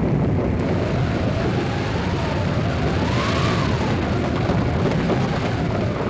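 Radio-drama storm sound effects: a dense, loud rumble of wind and rain, with a howling wind that rises and falls in pitch.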